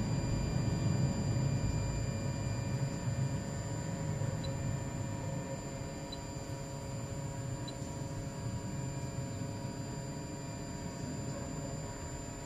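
Anycubic i3 Mega S 3D printer running on a home-all command after a motherboard replacement, its motors and fans giving a steady hum with several high whining tones. A low rumble fades over the first few seconds, and there are three faint ticks in the middle. The machine is behaving in a way its owner can't make sense of.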